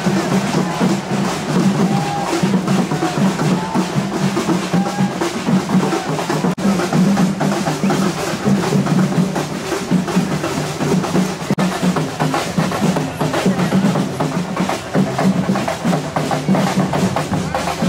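Festival procession drumming: fast, dense drum strokes over a steady low tone. The sound briefly drops out twice, about 6.5 and 11.5 seconds in.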